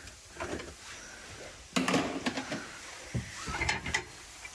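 Sound-deadening mat, frozen brittle with dry ice, being scraped and pried off a car's steel floor pan: irregular scrapes, knocks and cracks as chunks break away, the loudest just under two seconds in.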